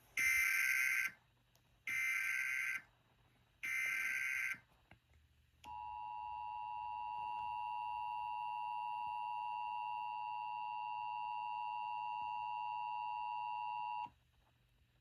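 Emergency Alert System broadcast tones: three short buzzy SAME data header bursts about two seconds apart, then the two-tone EAS attention signal. The attention signal is a steady dual tone held for about eight seconds before cutting off abruptly.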